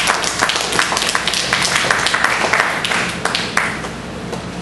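Audience applause, many hands clapping, dying down near the end.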